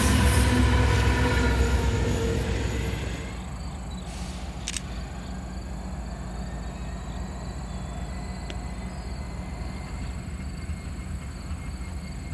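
EMD SD70MAC diesel locomotives passing close by at speed with engines running. The sound stops abruptly about three seconds in. It is followed by the low steady rumble of a Ferromex GE GEVO locomotive approaching slowly at a distance, with a couple of faint clicks.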